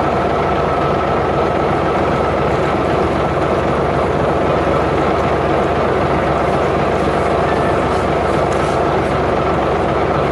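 A vehicle engine running steadily, a loud, unchanging mechanical drone.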